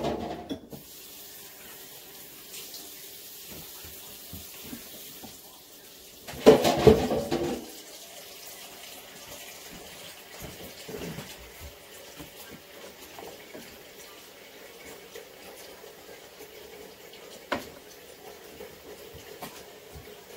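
Kitchen water sounds: a loud burst of water lasting about a second and a half, about six seconds in, over a faint steady hiss. There is a knock at the start and a sharp click near the end.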